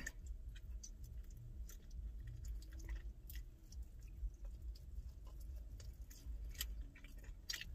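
A man chewing chicken wings close to the microphone: scattered wet mouth smacks and clicks over a low, steady hum.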